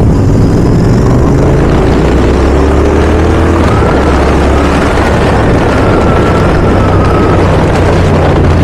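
Royal Enfield Continental GT 650's parallel-twin engine with a Red Rooster aftermarket exhaust, running under way. It rises in pitch as the bike accelerates over the first few seconds, then holds steady.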